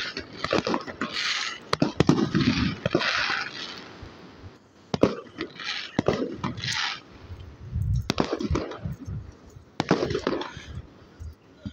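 Fireworks going off, several sharp cracks a few seconds apart, with people's voices talking throughout.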